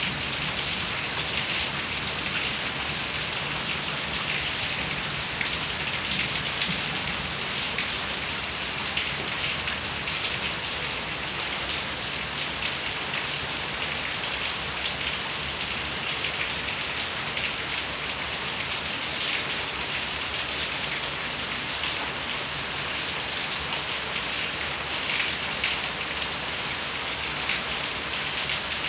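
Heavy rain falling steadily on corrugated metal roofs and a flooded yard, with runoff streaming from the roof edges and a dense scatter of tiny drop hits through an even hiss.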